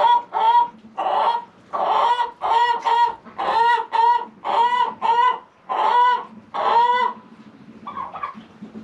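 Poultry calling: a run of about fifteen short, pitched calls, about two a second, that stops about seven seconds in.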